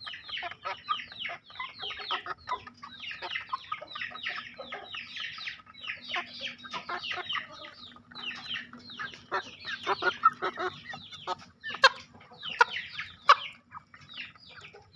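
Young Bangkok game-fowl chickens about three months old peeping continuously as they feed, many short falling calls a second. A few sharp taps near the end, from beaks striking the paving stones while pecking at wet bran.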